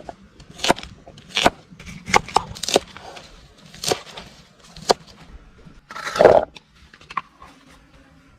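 A series of sharp, irregular knocks and cracks, about one a second, with a longer, louder crack about six seconds in; then it goes quieter.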